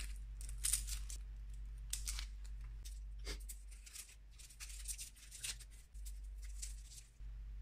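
Papery garlic skin crackling and tearing as fingers peel it off the cloves, in short irregular crackles, over a faint steady low hum.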